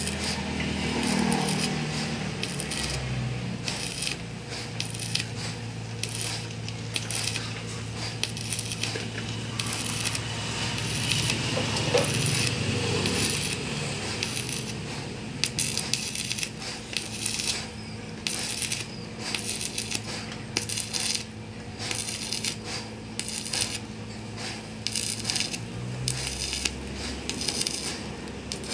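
Stick (shielded metal arc) welding on a steel engine crossmember: the arc crackles and sputters steadily and unevenly.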